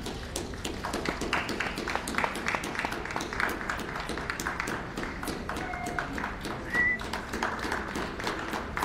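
Ringside audience clapping, a dense, uneven patter of handclaps, with a short high call about seven seconds in.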